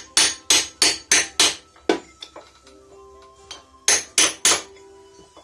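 Hammer striking metal in quick runs of sharp blows with a ringing tone between them: five fast strikes, two lighter ones, a pause, then three more. This is the hammer bending over the tab lock washer that secures the sprocket nut on an IZh Jupiter 4 motorcycle engine.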